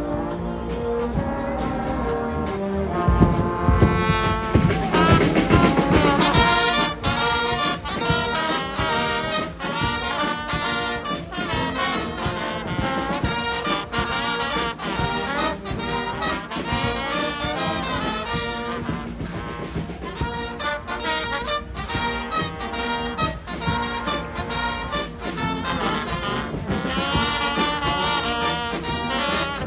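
Guggenmusik carnival brass band playing loud, brassy music: trumpets, trombones and tubas over a steady bass drum and cymbal beat. A loud rising brass glide comes about four seconds in.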